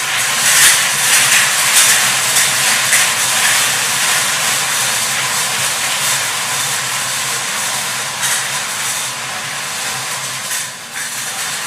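Numbered balls tumbling and clattering inside five hand-cranked stainless-steel wire lottery drums turning at once. The result is a steady, dense rattle that eases slightly near the end.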